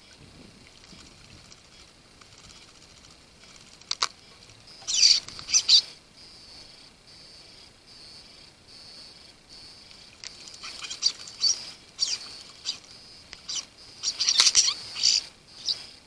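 Juvenile common starlings calling in short harsh bursts, once around five seconds in and again repeatedly through the last five seconds, with a single sharp click just before the first burst.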